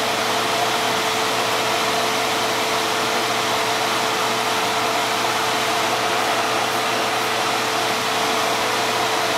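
Steady whirring fan noise with a constant hum, unchanging throughout.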